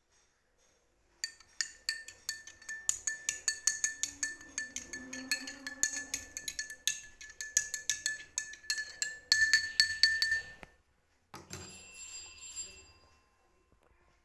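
Metal spoon stirring liquid in a glass tumbler, clinking rapidly against the glass with a bright ringing tone. The clinking starts about a second in and stops about ten seconds in, and a shorter, softer ringing sound follows.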